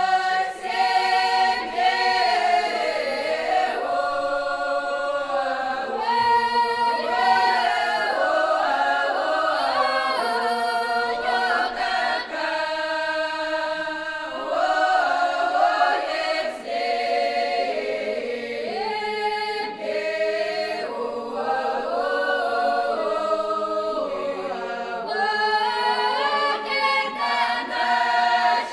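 Women's folk choir singing a traditional Kuban Cossack song a cappella, several voices in parts.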